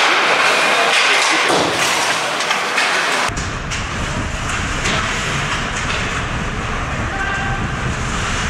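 Ice hockey rink noise during play: a steady hiss with short scraping streaks, which about three seconds in turns abruptly into a heavy low rumble.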